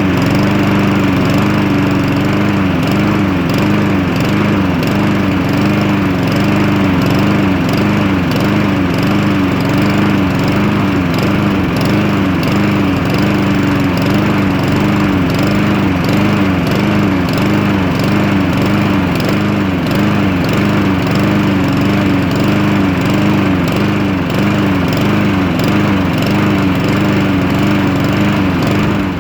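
Honda engine on a Cub Cadet lawn mower running at a rough idle, its speed wavering up and down about once a second.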